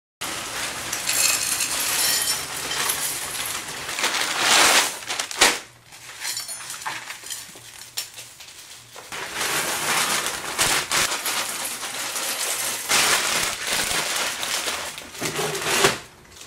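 Breakfast-table clatter: spoons clinking against ceramic cereal bowls and cereal crunching, with paper rustling as a small packet is torn open.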